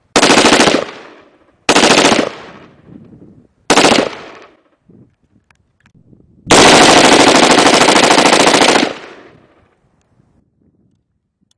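Automatic firearm firing in bursts: three short bursts in the first four seconds, then one long burst lasting about two and a half seconds, each ending in a fading echo.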